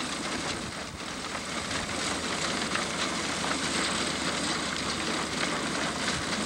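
Tractor-drawn grain binder at work cutting wheat: the tractor engine running steadily under the busy mechanical noise of the binder.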